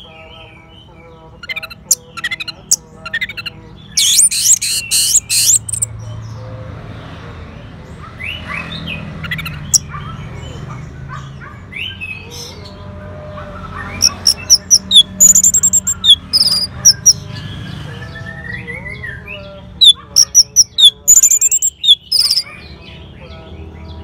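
Bird song: loud bouts of rapid, high-pitched notes about 4, 14 and 20 seconds in, over a steady background of varied calls from other birds and a low hum.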